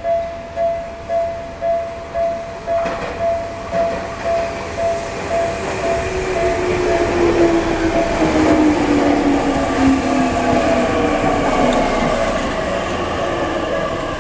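Level-crossing warning bell ringing at about two strokes a second. About six seconds in, an electric Tokyu Ikegami Line train passes over the crossing and grows louder, its motor whine falling steadily in pitch.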